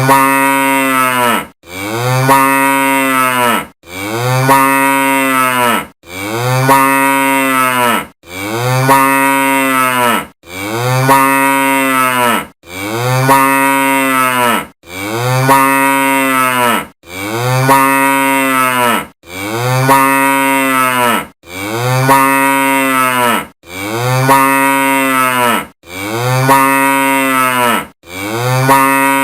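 A cow mooing, the same long call repeated over and over, each moo about two seconds long with its pitch rising and then falling, separated by short gaps.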